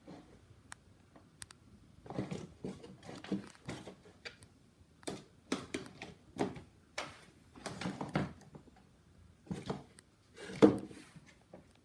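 Kittens pouncing on and scrabbling in a cardboard shoe box on a laminate floor: a string of irregular light knocks, thumps and scratches, the loudest thump near the end.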